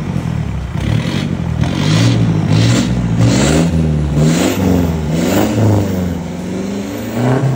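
Toyota Hilux GR Sport's turbo-diesel engine revving in short blips, about one a second, through a newly fitted Redback Extreme Duty aftermarket exhaust, its pitch rising and falling with each blip.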